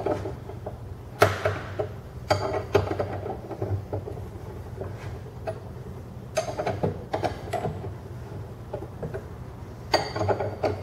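Hand tools clicking and clinking on the bolts of a split bearing puller as they are tightened down, a sharp clack about a second in and then short bursts of clicks, over a low steady hum. The puller's wedges are being drawn in between the bearing and the crankshaft to press the bearing off.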